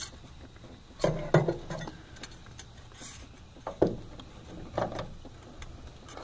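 Engine oil dipstick being worked out of its tube, the thin metal rod clinking and knocking against the tube and nearby parts a few times: a small cluster about a second in, then single knocks near four and five seconds.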